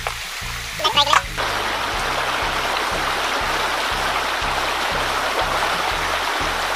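Stream water rushing over rocks, a steady loud hiss, over background music with a low beat about twice a second. A brief bit of voice comes about a second in, before the water starts.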